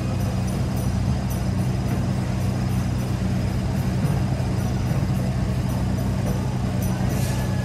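Steady low hum of city street traffic at an intersection, with a short hiss near the end.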